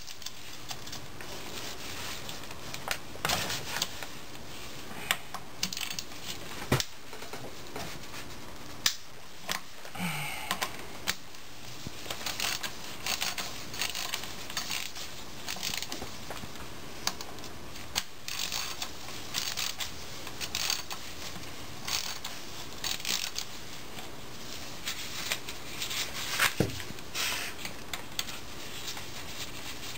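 Socket ratchet clicking in repeated runs of quick ticks as it backs out the parking pawl bracket retaining bolts on a 4L80E transmission, with scattered clinks and a few louder knocks of metal tools and parts being handled.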